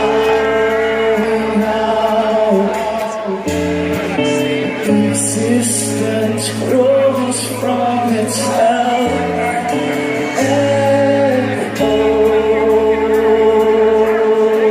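Progressive metal band playing live: a slow passage of long held chords over sustained bass notes that change every second or two, with a sung vocal line on top.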